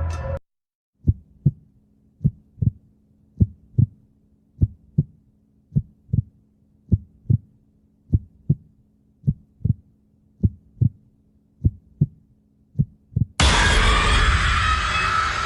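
Heartbeat sound effect: a slow double thump about once a second, eleven beats over a faint low hum. About 13 seconds in, a loud burst of static-like noise cuts in suddenly.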